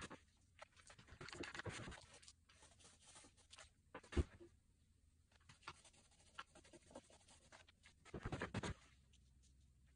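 Paint roller and plastic stencil sheet being handled on fabric: soft scratchy rubbing and rustling, with one sharp knock about four seconds in.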